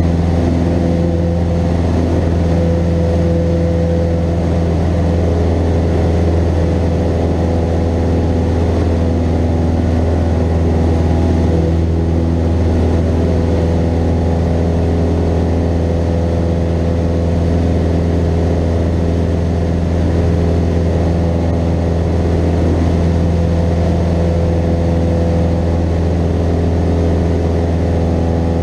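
Cessna 172N's four-cylinder Lycoming engine and propeller running steadily at cruise or climb power in flight, a loud even drone.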